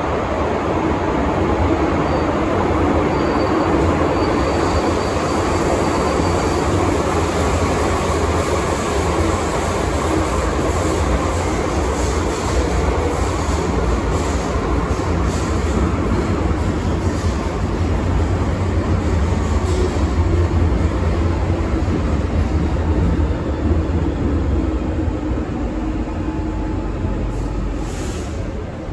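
Hong Kong MTR Island Line M-Train running through the tunnel, heard from inside the car: a steady rumble of wheels on rail and running gear, getting quieter near the end.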